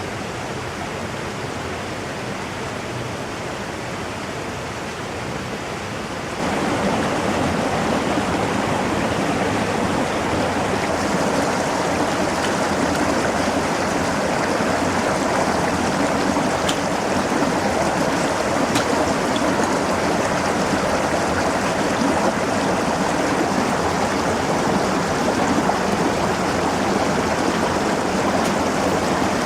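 Brook water rushing steadily through the gorge. About six seconds in, it jumps to a louder, fuller rush.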